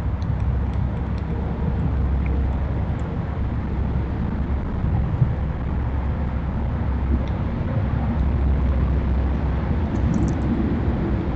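Steady low rumble of road traffic, swelling slightly about eight seconds in, with a few faint high bird chirps above it.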